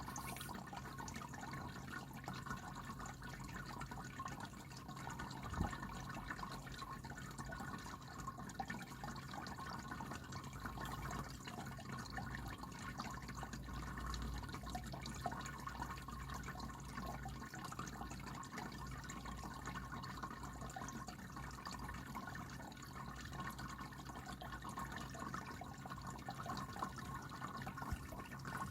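Anko 3-litre pet water fountain running: water trickling and dripping steadily over a low, steady pump hum. There is one light knock about six seconds in.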